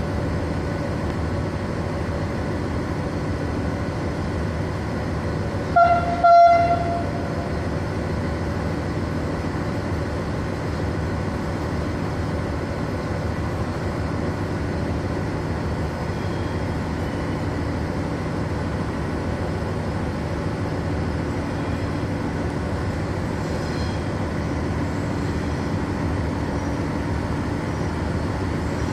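FS class E444 electric locomotive drawing its coaches slowly along a station platform, with a steady running hum carrying several held tones. About six seconds in, a train horn gives two short blasts.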